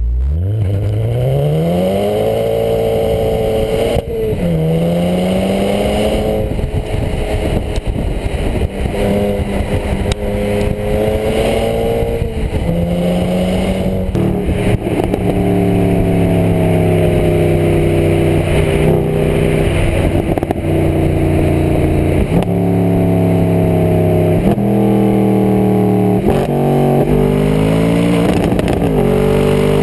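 Performance car engine accelerating hard through the gears. The pitch climbs and then drops sharply at each gear change, several times over.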